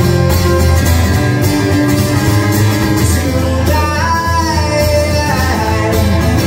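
A man singing with his own strummed acoustic guitar, live, drawing out long wavering notes about four to five seconds in.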